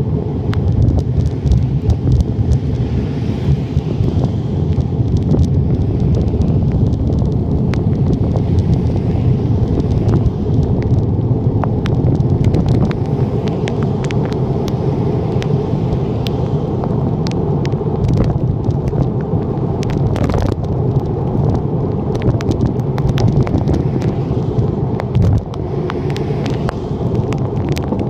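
Wind buffeting the microphone of a handlebar-mounted phone on a moving bicycle, a loud steady low rumble, with scattered sharp ticks throughout.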